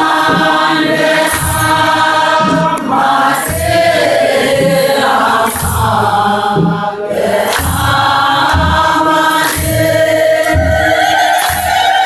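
An Ethiopian Orthodox congregation singing a hymn together in chorus, with a drum beating a steady rhythm underneath.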